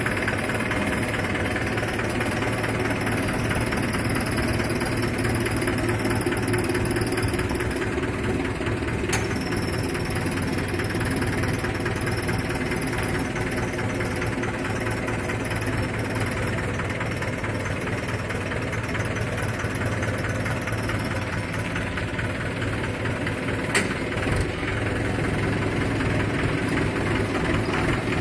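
Mahindra 475 DI tractor's four-cylinder diesel engine running steadily at low revs, with a brief sharp click a third of the way in and another near the end.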